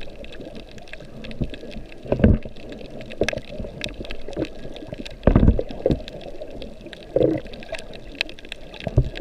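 Muffled water noise heard underwater through a camera's waterproof housing: a steady low wash broken by irregular gurgles, whooshes and small clicks. The loudest whoosh comes about five seconds in.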